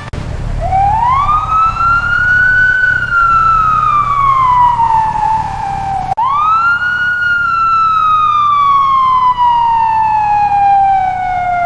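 Fire engine siren wailing in two long slow cycles, each rising quickly in pitch and then falling slowly, with a low rumble beneath the first.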